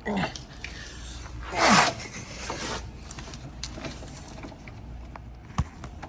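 Hands working wiring into a connector: scattered rustling and small clicks, a louder scraping rustle about a second and a half in, and a sharp click near the end.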